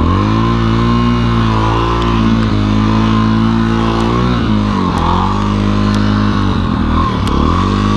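Single-cylinder Yamaha XT dual-sport motorcycle engine running at fairly steady revs, with the revs dropping and climbing back briefly about halfway through and again near the end.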